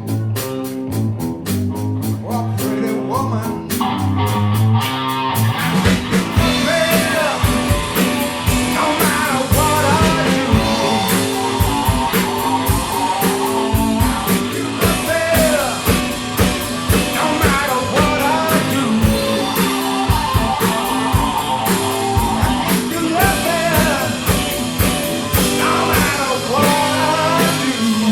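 Blues-rock band playing: a guitar and bass riff, with the drum kit and full band coming in about five seconds in.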